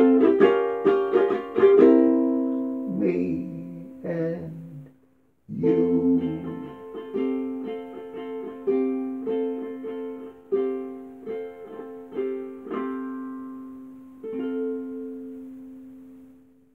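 Ukulele strummed in a small tiled room, playing the song's closing bars: a run of chords, a short break about five seconds in, then slower strummed chords. The last chord is left to ring and fade out.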